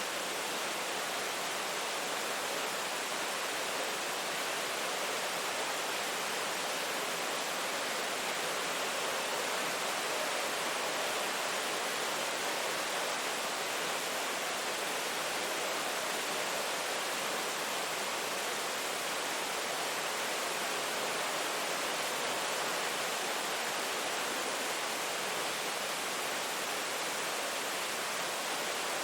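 Steady rain falling, an even hiss with no separate drops or thunder standing out.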